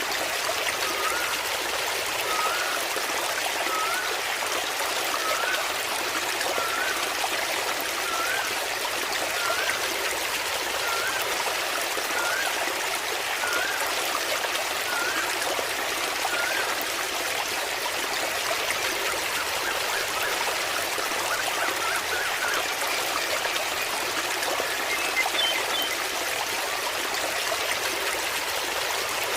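Small waterfall splashing and trickling steadily. A faint short chirp repeats about every second and a half through the first half.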